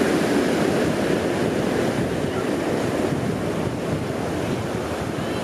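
Ocean surf: small waves breaking and washing up the beach in a steady rushing wash, easing a little toward the end.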